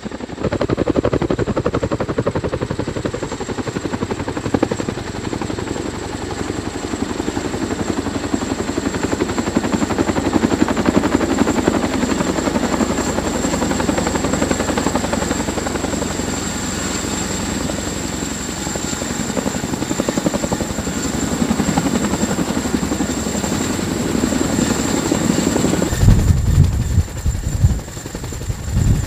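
Large military heavy-lift helicopter running, with a fast, even beat from the rotor blades over a steady high turbine whine. About three seconds before the end a heavy, uneven low rumble joins it.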